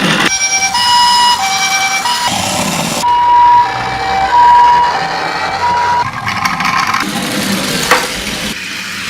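Japanese ambulance two-tone siren, "pee-poh", alternating between a high and a low tone about every half second, which stops about six seconds in. A rushing noise follows, with a sharp click near the end.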